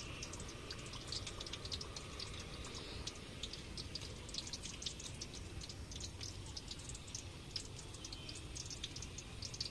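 Battered banana pieces frying in a wok of hot oil over a wood fire: a soft, steady sizzle full of small crackles and spits.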